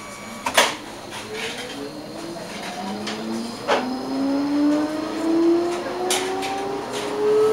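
Electric tram's traction motors whining, the whine rising steadily in pitch as the tram picks up speed. A few sharp knocks from the wheels on the track.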